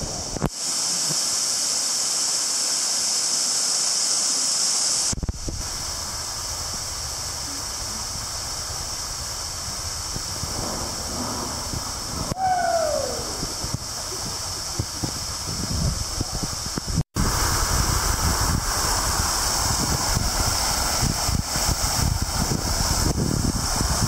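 Steady rushing and splashing of a small waterfall pouring off a rock ledge into a lake pool. After a brief dropout about two-thirds of the way in, it comes in fuller and deeper, heard from close under the falls.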